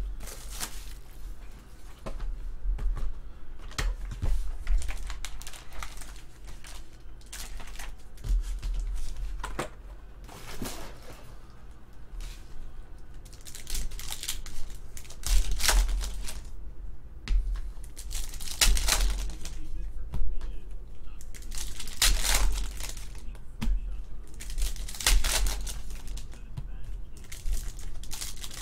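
Foil wrapper of a Panini basketball card pack crinkling and tearing as it is pulled open by hand, with irregular rustles and crackles. Near the start the cardboard card box is handled.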